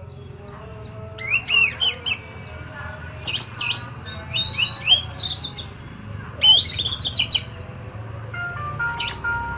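Oriental magpie-robin singing in short bursts of rapid, sweeping whistled phrases, in the harsh 'isian kasar' fill-in style, over a steady low hum. A few held tones come in near the end.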